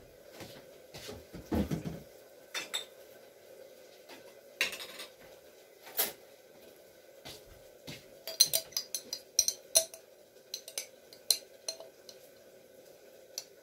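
Kitchen utensils clinking and knocking against dishes: scattered single taps, then a quick run of taps about eight seconds in, over a faint steady hum.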